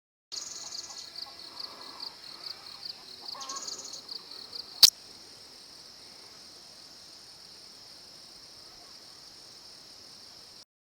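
Insects calling: a rapid, high-pitched pulsing chirp for the first few seconds, then a single sharp loud click about five seconds in, after which a steady high buzz carries on until it stops abruptly near the end.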